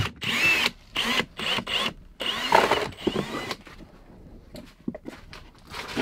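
Cordless drill boring down through a wooden floor in a run of short trigger bursts, its motor whine rising and falling with each one. The drilling stops about three and a half seconds in, leaving a few faint clicks and knocks.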